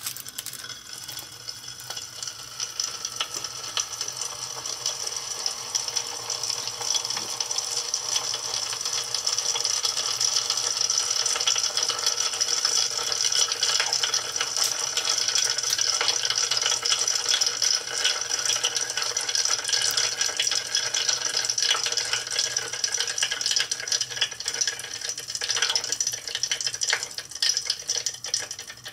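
Potassium permanganate reacting in a beaker of ethanol layered over concentrated sulfuric acid: a dense crackle of many tiny pops and fizzing as manganese heptoxide forms and sets off small explosions in the ethanol. It grows louder over the first several seconds, then keeps going steadily.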